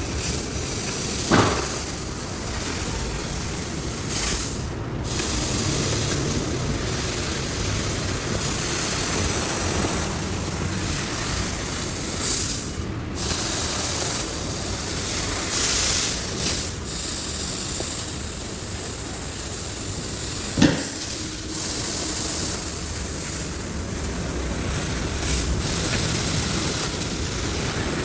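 Steady hissing machine noise from CNC machining of aluminium panels, changing abruptly several times, with a sharp knock about two thirds of the way through.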